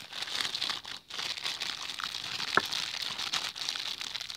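Thin clear plastic bag crinkling as it is handled and wrapped around a drinking glass, with a short lull about a second in.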